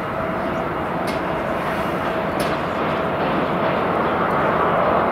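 Boeing 737-300's CFM56-3 jet engines at taxi power: a steady rushing hum with a faint whine, growing slowly louder as the aircraft passes close by.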